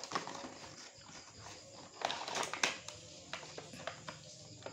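Handling of a cardboard toy box with a clear plastic window: scattered light taps, knocks and plastic crinkles, busiest about two seconds in.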